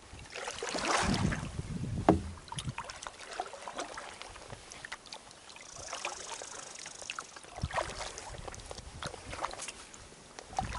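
Canoe paddling: paddle strokes swishing and dripping in the water, with scattered light clicks and a knock about two seconds in, likely the paddle touching the hull.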